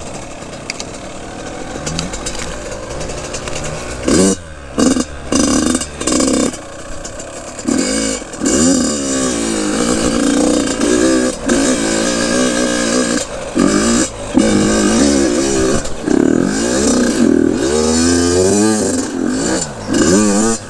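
Dirt bike engine being ridden over rough trail, running low and fairly steady at first, then revving up and down over and over, with the throttle opened and chopped in short bursts.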